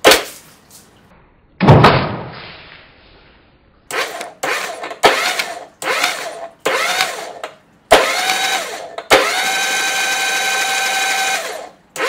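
Honda BF25 four-stroke outboard turned over on its starter motor with the spark plugs out, to clear water from the cylinders of the drowned engine. A sharp click, then a loud hissing burst about two seconds in, several short bursts of cranking, and two longer steady whining cranks near the end.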